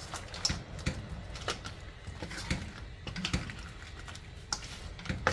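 Wooden spatula stirring crab, prawns, corn cobs and potatoes in sauce in a metal wok: irregular clacks and knocks as the spatula and shell-on pieces hit the pan and each other.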